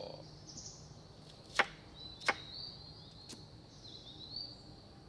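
Three sharp knocks of a knife blade striking a wooden table top while cutting fruit, about a second and a half in, again under a second later, and once more a second after that; the first is the loudest.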